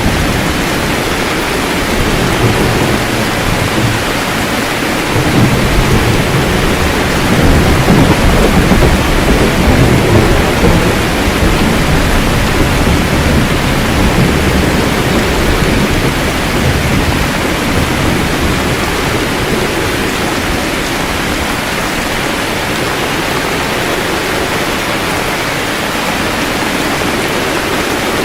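Heavy rain falling steadily, with thunder rumbling low underneath that swells for several seconds about a third of the way in and then fades back.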